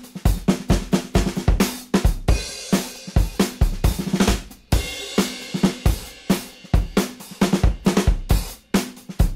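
Background music with a drum-kit beat: bass drum, snare and cymbals striking in a steady rhythm.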